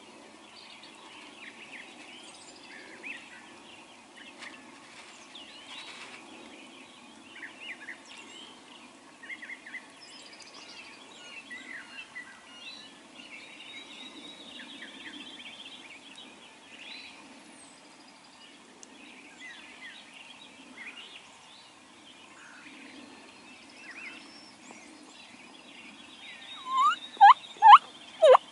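A wild turkey gobbler gobbling once near the end: a loud, rattling call that falls in pitch. Songbirds chirp faintly before it.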